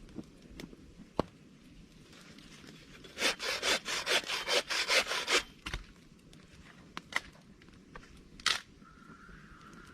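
Wood being sawn by hand: a quick run of about ten rasping strokes lasting about two seconds in the middle, with a few single knocks and clicks around it.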